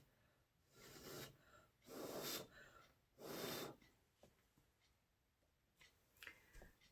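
Three short, faint puffs of breath blown out by mouth about a second apart, blowing wet acrylic paint across a canvas in a Dutch pour, followed by a few faint small clicks.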